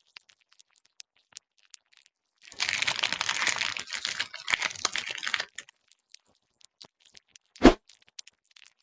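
ASMR crinkling, crackling sound effect lasting about three seconds, starting a couple of seconds in, with scattered small clicks around it. A single sharp tap comes about a second before the end.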